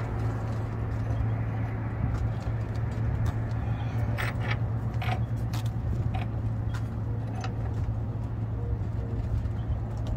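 Steady low mechanical hum with scattered sharp metallic clicks and taps from hand tools and bolts going into a bus's transmission pan.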